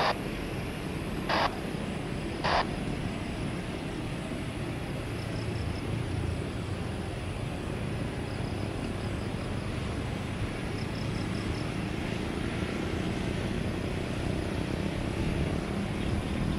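Steady low rumble of a jet airliner's engines at taxi power as the plane rolls slowly along the runway, swelling slightly near the end. Three short sharp bursts come in the first three seconds, and faint high chirps sound in small groups throughout.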